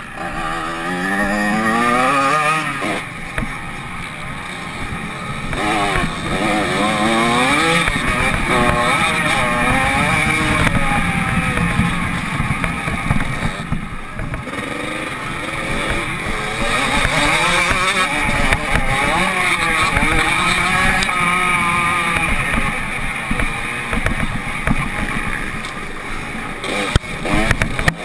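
Motocross dirt bike engine heard from on board, revving up and falling back over and over as the rider accelerates, shifts and backs off around the track.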